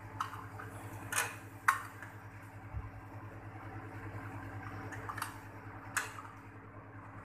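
Steady hum of a running air conditioner's compressor, with a handful of sharp metallic clicks and clinks from a brass refrigerant manifold gauge set being handled.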